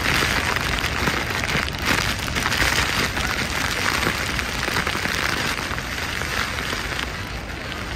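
Roar of Niagara Falls with its spray pelting the boat deck: a loud, steady rushing hiss over a low rumble, easing slightly near the end.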